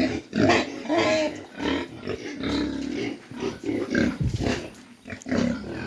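Pigs grunting in a run of short, irregular calls.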